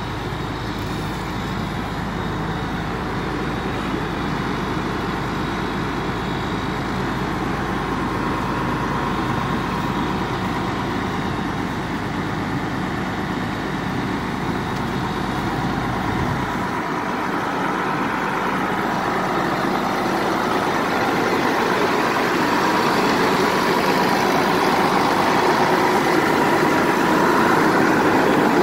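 Rescue truck's engine running steadily, growing gradually louder.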